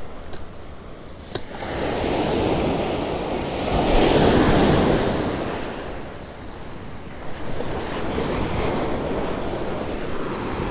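Ocean surf washing onto the beach, with wind buffeting the microphone; the waves swell loudest about four seconds in. Two light clicks come in the first second and a half.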